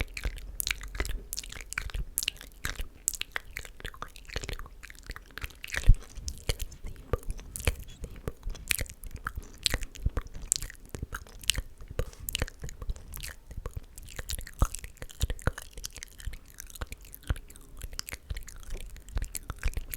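Close-miked ASMR mouth sounds: wet tongue and lip clicks and smacks coming irregularly, several a second, with one sharper pop about six seconds in.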